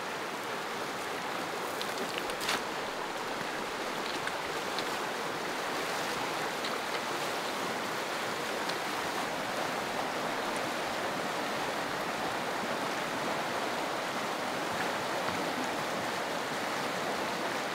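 Fast-running river rushing steadily, with one short sharp knock about two and a half seconds in.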